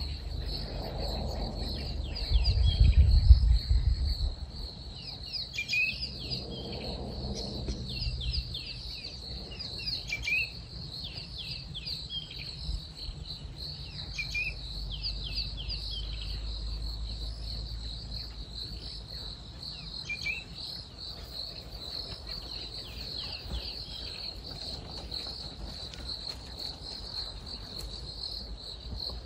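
Steady high chirring of insects, with short bird chirps breaking in several times during the first two-thirds. A loud low rumble comes about two to four seconds in.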